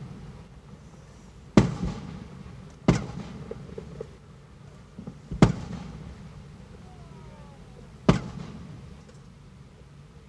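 Aerial fireworks shells bursting: four sharp booms a second or more apart, each dying away with a rumbling echo.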